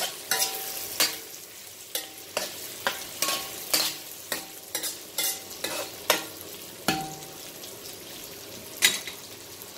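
Chicken wings sizzling as they fry in a heavy metal pan, stirred with a utensil that knocks and scrapes against the pan about twice a second, some knocks ringing briefly. The stirring stops about seven seconds in, and one louder knock comes near the end.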